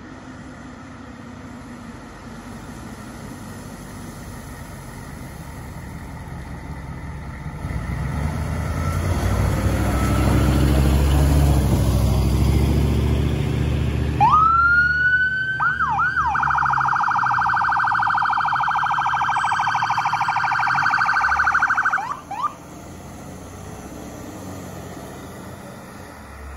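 Fire engine approaching, a low rumble building over several seconds. About halfway through, its electronic siren sweeps up in a few quick wails, then switches to a fast pulsing warble for about six seconds before cutting off suddenly.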